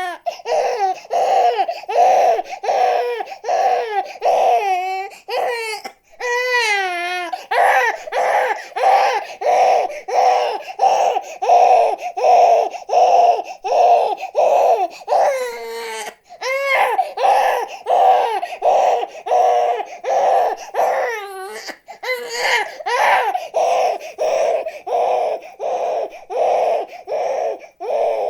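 Baby crying hard in rapid, rhythmic sobs, about two short cries a second, broken every few seconds by a longer wavering wail.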